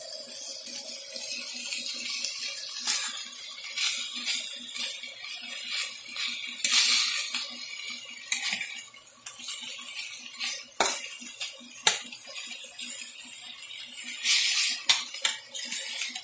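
Chicken, bell peppers and red onion sizzling in a hot frying pan, the hiss swelling and easing as they are stirred. There are a few sharp knocks of a utensil against the pan about eleven, twelve and fifteen seconds in.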